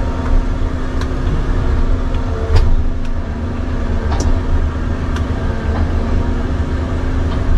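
Halverson HWP-140B firewood processor running, its engine making a steady low hum, with a few sharp clicks or knocks scattered through.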